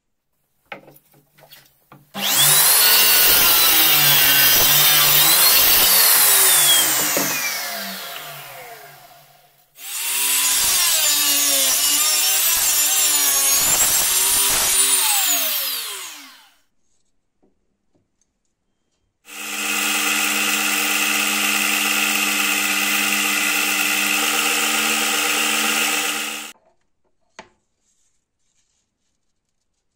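DeWalt miter saw cutting black walnut, twice: each time the motor runs up, changes pitch as the blade goes through the wood, then winds down with a falling whine. A third, steadier run of power-tool noise follows for about seven seconds and stops abruptly.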